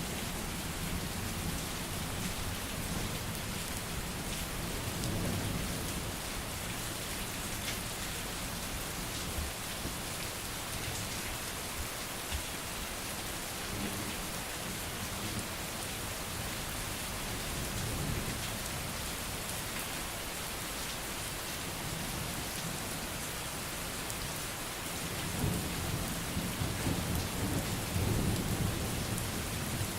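Steady rain hissing, with low rolling thunder rumbles swelling and fading several times, the loudest and longest near the end.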